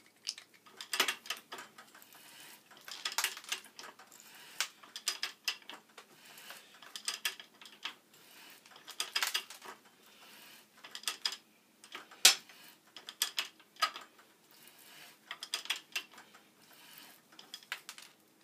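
Ridgid OO-R ratcheting hand pipe threader cutting threads on black iron pipe. The ratchet handle clicks in clusters of metal-on-metal clicks, one cluster every second or two, as the handle is worked back and forth.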